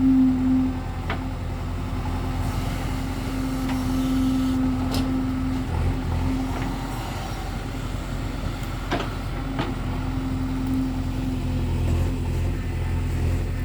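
Heavy diesel machinery engine, like a backhoe loader or tractor, running steadily with a low rumble and a hum that fades in and out, with a few light clicks.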